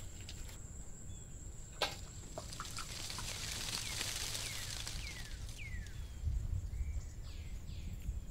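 Quiet outdoor ambience: a bird gives a run of short falling chirps in the middle, over a steady high thin tone and a low rumble, with a single click about two seconds in.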